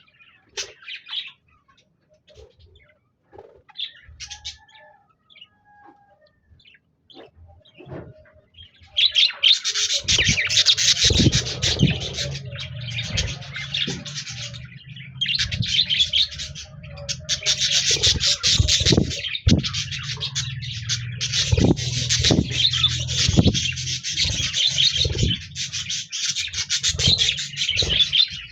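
Budgerigars chirping sparsely, then about nine seconds in breaking into loud, continuous warbling chatter. A low rumble and repeated knocks run under the chatter.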